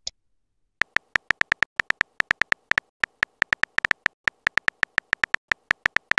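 Keyboard tap sound effects from a texting-story chat app, a quick run of short, crisp clicks, one per letter, about six a second, as a message is typed out. The clicks start about a second in.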